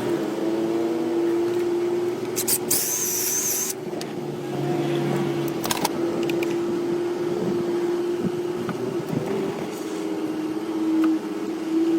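Steady motor hum holding one tone that wavers slightly, with a brief high-pitched warbling sound about two and a half seconds in.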